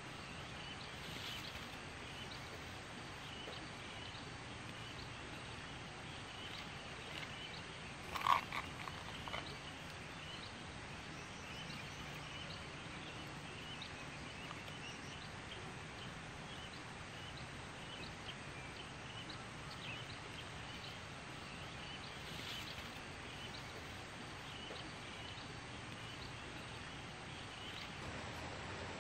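Steady outdoor background with many small, repeated animal chirps, and one brief louder sound about eight seconds in.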